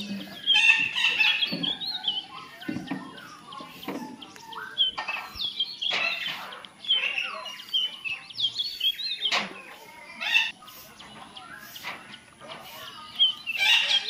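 Parakeets, red-breasted parakeets by their look, calling as they feed: many short, harsh chattering calls that glide up and down in pitch and overlap one another, with a few sharp clicks among them.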